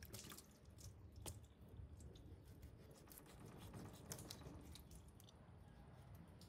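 Faint wet squishing and scattered light clicks of hands handling raw skipjack tuna and a knife working on the fish over a bowl of water.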